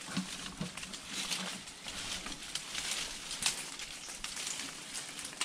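Leaves and branches rustling, with scattered sharp crackles of twigs, as the tree canopy is disturbed.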